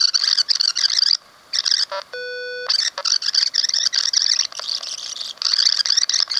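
Dictaphone microcassette voice processor rewinding a microcassette while the recorded speech plays back at high speed through its built-in speaker as a high-pitched chipmunk-like chatter, broken by short gaps. A steady electronic beep of about half a second comes about two seconds in.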